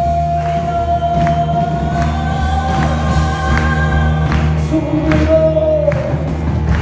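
Choral music: voices hold a long, high sustained note over a steady low drone, with regular percussive hits. The note drops to a new pitch near the end.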